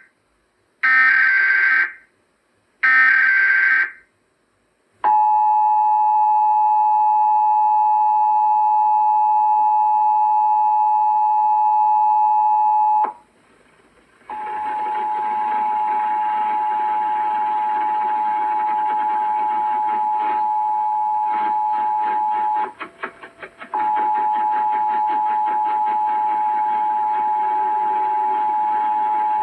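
Emergency Alert System tones: the tail of one and then two more roughly one-second bursts of the SAME digital header. The two-tone EAS attention signal follows, held steady for about eight seconds. After a second's pause the attention signal sounds again under a layer of hiss and crackle, and it cuts out briefly about two-thirds of the way through.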